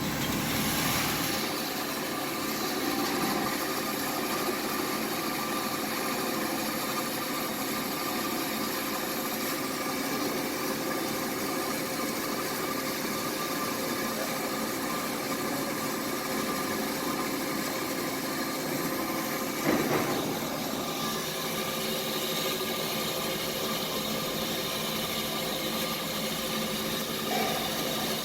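Hyd-Mech H-22A automatic horizontal band saw running: a steady machine hum and hiss with several constant tones. There is a brief louder clatter about twenty seconds in.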